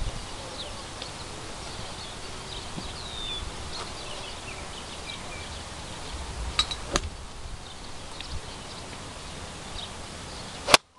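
Small birds chirping steadily in the background, with two light clicks about seven seconds in. Near the end a single sharp crack: a wedge striking a golf ball off the turf.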